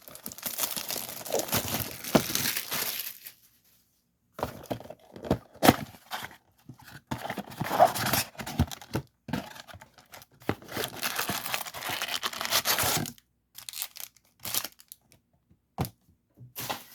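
Packaging of a trading-card mega box being torn open and crinkled by hand, in three stretches of rustling with pauses and small clicks and knocks between.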